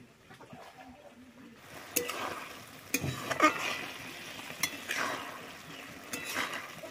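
Flat metal spatula stirring and scraping cauliflower and goat blood around a metal wok as it fries and sizzles. The stirring starts about a second and a half in, with several sharper scrapes against the pan.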